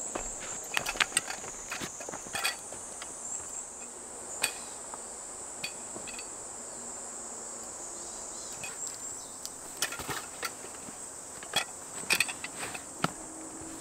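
Steady high-pitched buzzing of insects in the forest, with scattered sharp clicks and knocks, several in quick clusters, that are loudest near the start and about two-thirds of the way through.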